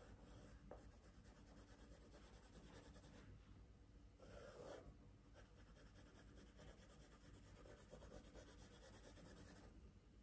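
Faint scratching of a drawing tool on paper: short strokes one after another as the shading of a pine tree is drawn in, a little louder about four and a half seconds in.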